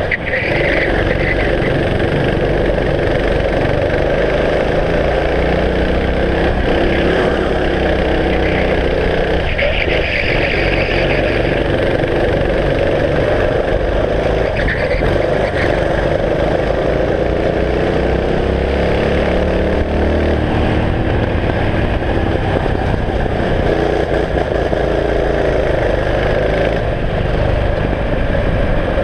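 Kart engine running at racing speed, its pitch rising and falling again and again as it revs up along the straights and drops back for the corners.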